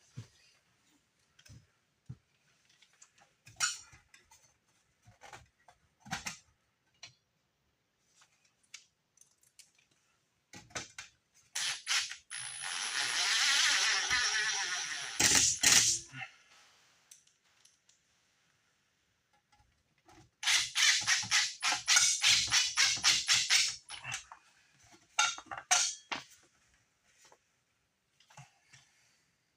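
Tools and parts being handled while a heater exhaust is fitted through a wall: scattered clicks and knocks. About halfway there is a loud hissing whir lasting about four seconds. A few seconds later comes a run of rapid clicking, about six a second, lasting some three seconds.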